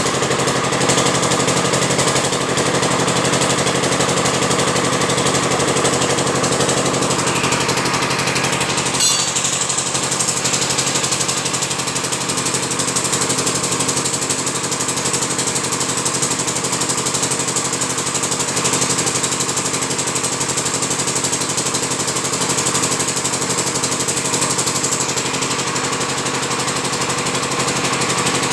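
Stationary engine driving a garage air compressor, running steadily with a rapid, even chugging beat.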